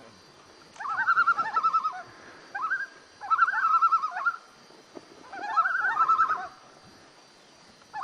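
Common loons giving their tremolo call: rapid, wavering, laughing notes in four bursts of about a second each, with short gaps between them. This is the loons' agitated call.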